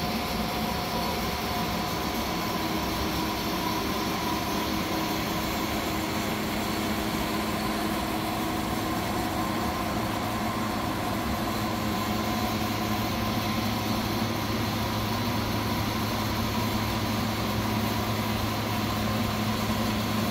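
A 15" x 54" Leblond Regal Servo Shift engine lathe running steadily under power, a constant mechanical hum carrying several steady tones from its drive.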